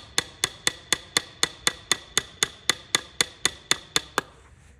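Hammer tapping lightly and steadily on a metal part, about four strikes a second, each with a short metallic ring; the tapping stops about four seconds in.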